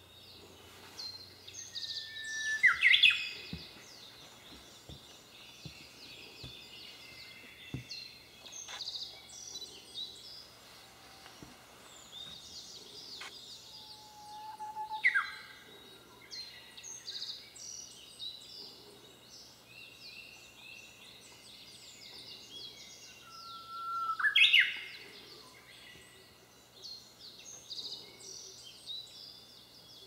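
Japanese bush warbler singing its 'hoo-hokekyo' song three times, about ten seconds apart: a held whistle followed by a quick rising flourish. Faint high chirping runs underneath.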